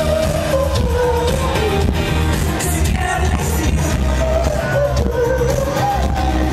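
Live pop band playing: a singer's melody line over heavy bass and drums, loud and continuous.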